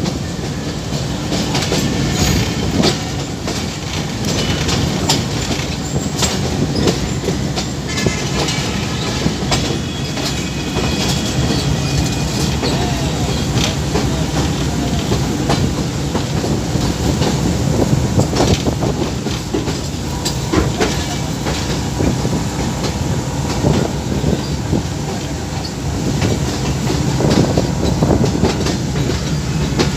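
Passenger train hauled by a GEU 20 diesel-electric locomotive running at speed. The wheels clatter over the rail joints with a steady rumble and frequent sharp clicks.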